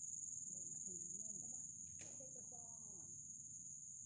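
Steady, high-pitched shrilling of insects, with faint voices underneath.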